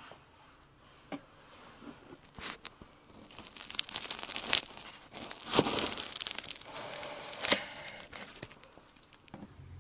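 Kitchen knife sawing through the flaky crust of a baked apple turnover on a wooden cutting board: the pastry crackles and crunches in a run of sharp crackles, densest and loudest in the middle of the cut.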